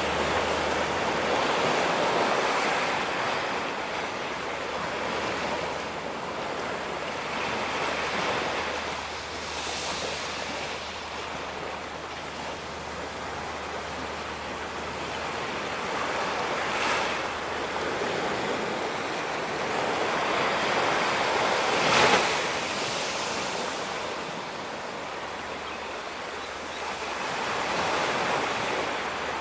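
Ocean waves breaking on a beach, the surf swelling and ebbing every few seconds, with a sharper crash about two-thirds of the way through.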